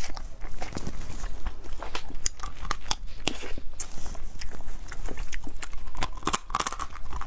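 Close-miked eating sounds: irregular crunchy clicks, cracks and wet smacks as spicy crab claws are bitten and chewed, shell crackling between the teeth.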